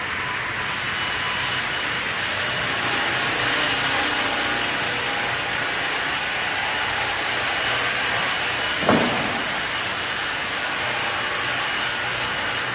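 Sawmill machinery running steadily, with a single short knock about nine seconds in.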